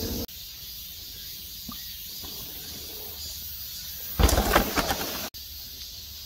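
Mountain bike landing a dirt jump about four seconds in: about a second of tyres hitting and rolling over packed dirt, the loudest sound, over quiet forest ambience with a faint bird call.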